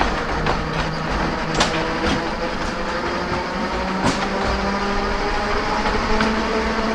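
Narrow-gauge electric tram running along the line: a steady motor whine that slowly rises in pitch as it gathers speed, over a running rumble, with the wheels clicking sharply over rail joints a few times.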